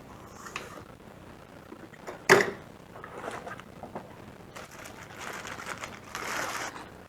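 Unboxing handling: a sharp knock about two seconds in, then rustling of cardboard and plastic packaging being opened.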